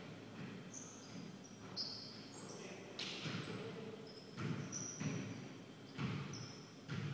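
A basketball being dribbled and bounced on a hardwood gym floor, a string of separate thuds every second or so, with short high squeaks from sneakers on the court as players cut and stop.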